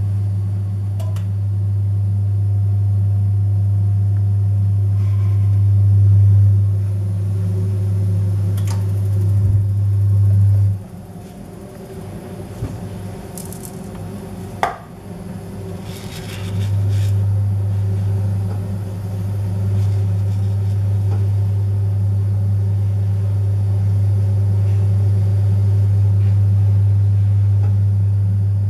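Loud, steady low electrical hum that drops away about eleven seconds in and comes back some five seconds later, with a few faint clicks and one sharper click about fifteen seconds in.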